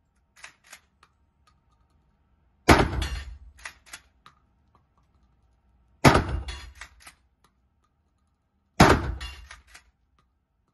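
Tellioğlu shotgun fired three times, about three seconds apart, each loud shot echoing around the indoor range. Lighter metallic clacks of the action being cycled come just before the first shot and again just after it.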